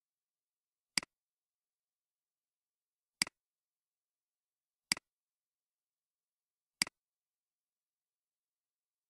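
Computer mouse clicking four times, about two seconds apart, each click a sharp tick followed at once by a softer one.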